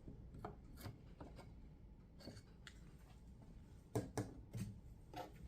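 Faint scattered clicks and light knocks of a chainsaw's bar and chain parts being handled, with a louder cluster of knocks about four seconds in.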